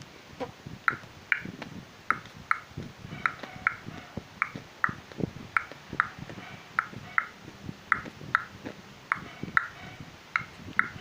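Mouth clicks in a steady rhythm, made as a beatbox imitation of a sound effect: pairs of sharp clicks about half a second apart, the pairs repeating a little more than once a second, with soft low thumps in between.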